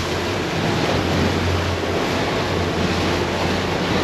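Boat under way at trolling speed in choppy water: wind buffeting the microphone and water washing against the hull over the steady low drone of the outboard engine.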